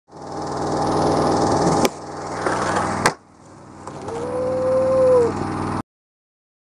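Skateboard wheels rolling on concrete, with two sharp clacks of the board about two and three seconds in. Later a tone rises and falls for about a second, and the sound cuts off suddenly.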